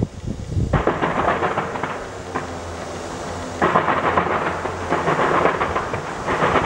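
Distant New Year fireworks show: a dense crackling of bursting shells over a low, thunder-like rumble. The crackle sets in sharply about a second in, then surges again midway and near the end.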